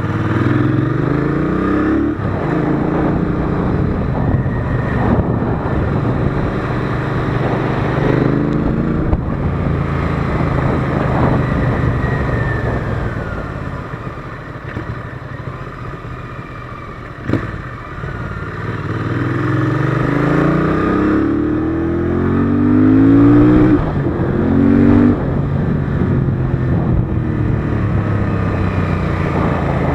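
Royal Enfield Interceptor 650's 648 cc parallel-twin engine under way, pulling up through the revs again and again with rising pitch as the bike accelerates through the gears, easing off to a lower, quieter run in the middle.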